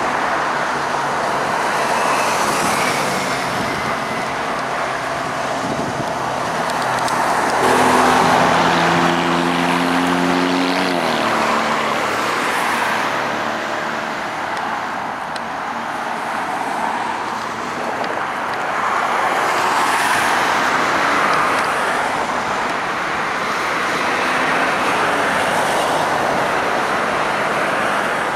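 BNSF diesel freight locomotives and their train rolling by: a steady rumble and running noise. From about seven and a half seconds in, a horn of several notes sounds for about three seconds, its pitch sagging as it cuts off.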